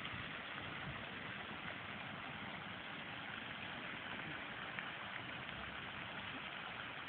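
Steady outdoor background noise: an even hiss with no distinct event.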